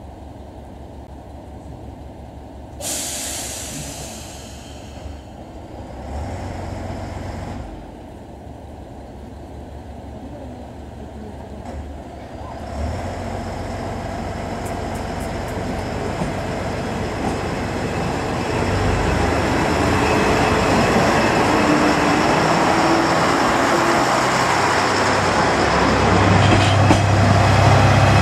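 JR Shikoku 1000 series diesel railcar idling with a low, even throb. About three seconds in there is a sudden loud hiss of compressed air that fades over a couple of seconds. From about halfway through, its diesel engine revs up and grows steadily louder as the railcar pulls away.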